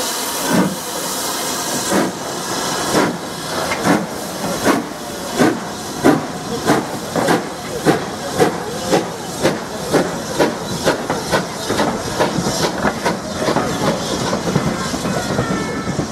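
BR Standard Class 5 4-6-0 steam locomotive pulling away from a stand, with steam hissing from its open cylinder drain cocks. Its exhaust beats quicken from about one a second to about two a second. After about twelve seconds the beats blur into an even rumble as the coaches roll past.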